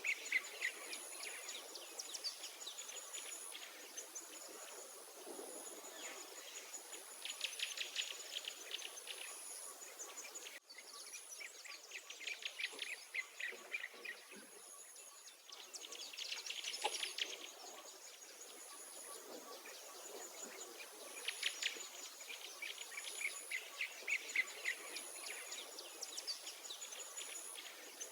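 Songbirds singing in repeated trilled phrases every few seconds. Underneath runs a high-pitched insect call that repeats in short bursts throughout.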